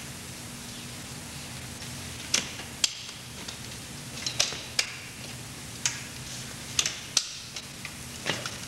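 A dozen or so sharp knocks and clatters, starting about two seconds in, as a folding cardboard-panelled prop box is handled and opened out, over a steady low electrical hum.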